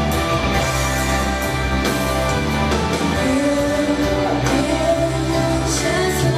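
A girl singing into a microphone over instrumental backing, holding long notes.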